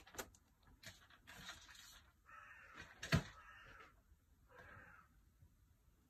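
Crows cawing, a few harsh caws between about one and five seconds in. A sharp knock about three seconds in is the loudest sound.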